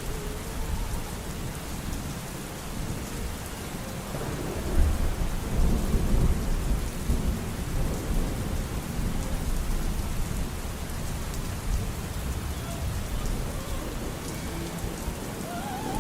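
Steady rain falling, with a long low roll of thunder that swells about four seconds in and dies away over the next several seconds.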